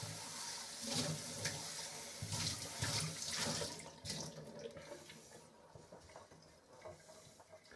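Kitchen tap running into a stainless steel sink, with a few light knocks; the flow dies away after about four seconds.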